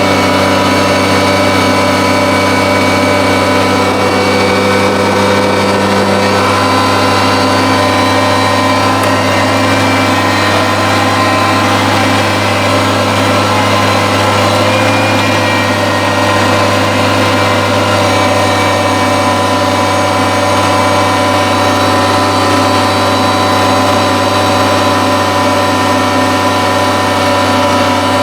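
Kubota BX compact tractor's diesel engine running steadily at an even speed while clearing snow with its front-mounted snowblower.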